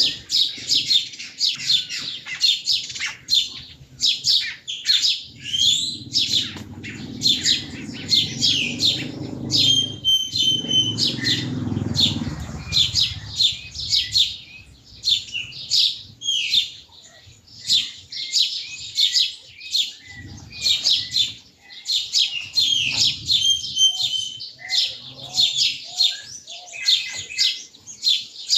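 Small songbirds chirping and twittering almost without pause, many quick high calls overlapping. A low rumble rises under them from about six seconds in and fades out a little past the middle.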